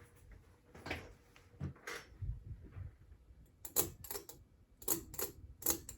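A ladder being set up and climbed: scattered dull thumps, then a quick run of sharp clicks and knocks in the second half.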